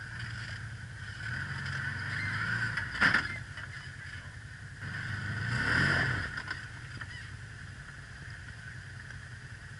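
Can-Am side-by-side engine revving in two swells as the machine climbs onto a rock ledge, the second rising and falling back in pitch. A single sharp knock comes about three seconds in.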